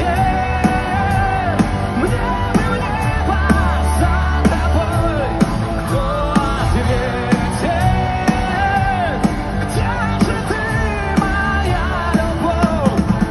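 A live pop-rock song: a male voice sings long held notes that bend and glide, over a full band with drums.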